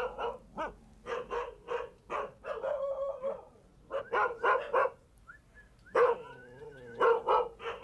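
Kishu dogs barking and yipping in quick runs of short, fairly high-pitched barks, with a couple of longer whining cries.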